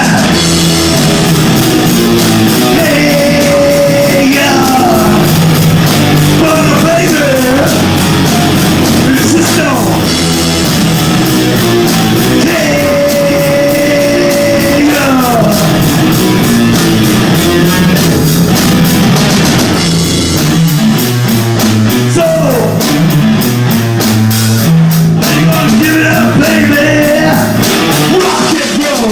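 A rock and roll band playing live, with sung vocals over electric guitar and drum kit. It is recorded loud and distorted by an overdriven phone microphone.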